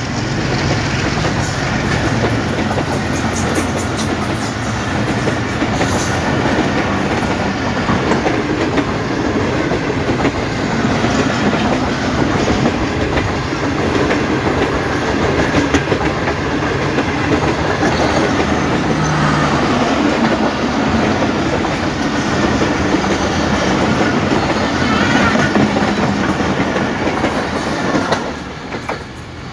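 Pakistan Railways passenger coaches rolling past at close range: a steady rumble of steel wheels on the rails, with irregular clickety-clack over the rail joints. The sound falls away near the end as the last coach goes by.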